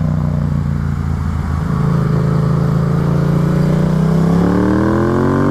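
Yamaha FZ-07's parallel-twin engine running under way, holding a steady pitch and then revving up over the last couple of seconds as the bike accelerates.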